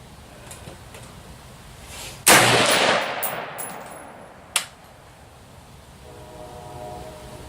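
A single rifle shot from a DPMS Oracle AR-15 firing a hand-loaded round: a sharp crack followed by a long echo that fades over about two seconds. A second, shorter sharp crack comes about two seconds after the shot.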